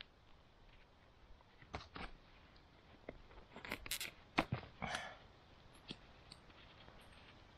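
A thin piece of birch bark being handled and folded, giving a few quiet crackles and clicks, most of them clustered around the middle.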